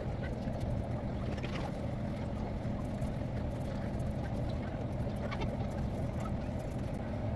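Steady low mechanical hum of a running forced-air electric egg incubator, its heater on and bringing the temperature up, with a couple of faint ticks. The recording is sped up.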